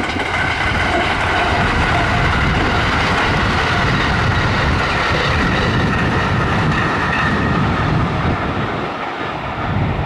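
White JR West limited-express electric train running past at speed and moving away along the track. The sound holds steady and eases a little near the end.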